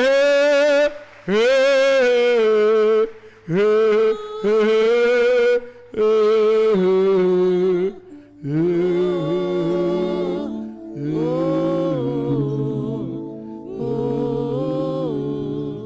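A worship song being sung: a single strong voice carries phrases of a second or two with held notes and short breaks between them. About halfway through, the sound becomes fuller, with several lines sounding together.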